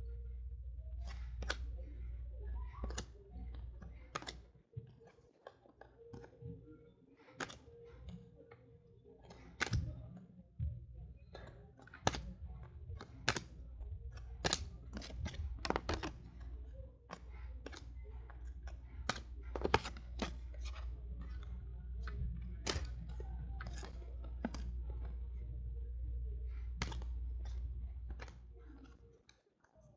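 Football trading cards being flipped and slid off a stack by hand: an irregular run of sharp clicks and snaps over a steady low hum.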